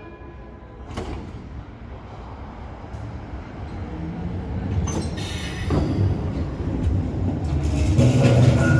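Stuttgart GT4 tram approaching and growing steadily louder, its running gear rumbling deep, with sharp clacks of steel wheels over rail joints or points about one, five and six seconds in.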